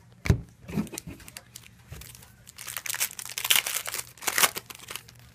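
Crinkling and rustling of a hockey-card pack's wrapper as the cards are handled, loudest from about two and a half to four and a half seconds in, after a short knock near the start.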